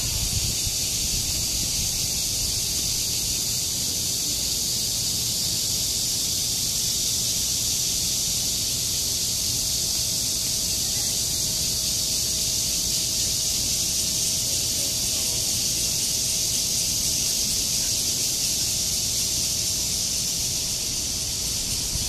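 Cicadas calling in chorus: a steady, high-pitched buzz that holds without a break.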